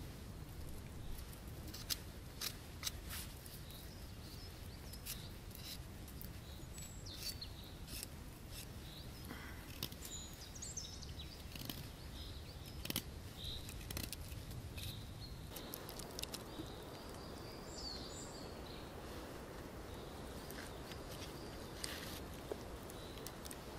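Knife whittling a small wooden stick: scattered sharp snicks as the blade cuts into the wood, over a steady low background with faint bird chirps.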